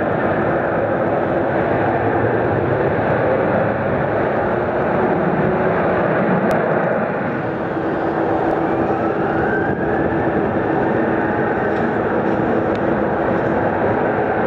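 Jet aircraft engine noise: a steady rush, with a low hum joining about halfway through and a faint rising whine a little later.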